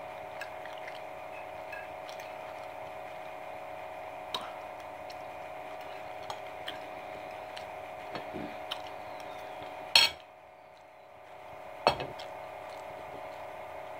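Metal fork clinking and scraping on a dinner plate: a few light, spaced taps, then two sharper, louder clacks about ten and twelve seconds in. A steady hum runs underneath.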